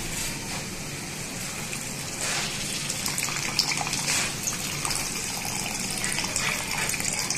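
Water poured in a steady stream from a plastic bottle into a wok-style pan of frying pork curry, added so the pork can boil covered.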